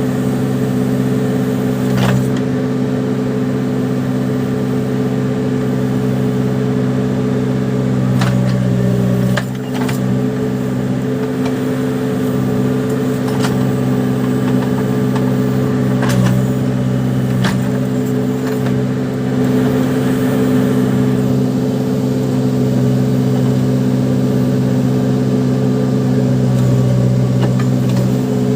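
Case 580 Super backhoe loader's diesel engine running steadily under working load, with a few sharp metallic knocks now and then.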